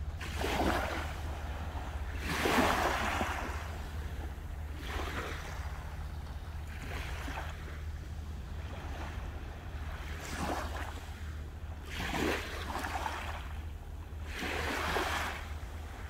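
Sea waves breaking and washing onto the shore in repeated surges every two to three seconds, the biggest a little over two seconds in, over a steady low rumble.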